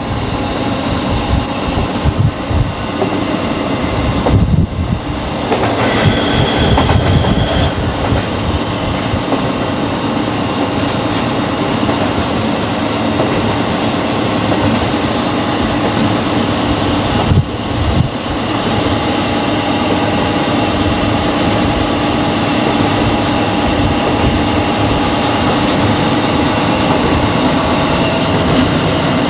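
Class 40 diesel-electric locomotive on the move, heard from inside its cab: its English Electric 16-cylinder engine runs steadily under the rattle of the wheels over the rails. A short high tone sounds briefly about six seconds in.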